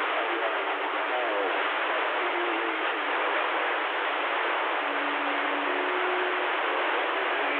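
CB radio receiver hiss from an open channel between transmissions, with faint warbling whistles from distant stations buried in the noise and a couple of short steady tones around the middle.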